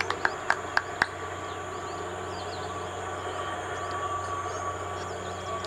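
Five sharp clicks, evenly spaced about four a second, then a steady hum with faint high chirps.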